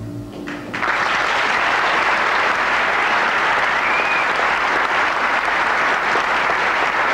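The last chord of a live ballad on guitar and piano dies away. Less than a second in, an audience breaks into steady applause.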